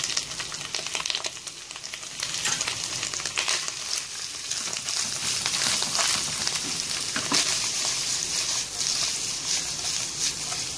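Drained canned mushroom slices sizzling in hot oil and garlic in a nonstick wok, with a steady frying hiss. A spatula scrapes and clicks against the pan as they are stirred and tossed.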